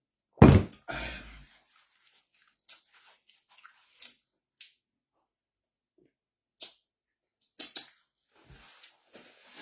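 Close-up eating sounds: a person chewing, with scattered small crunches and wet smacks, after one loud low thump about half a second in.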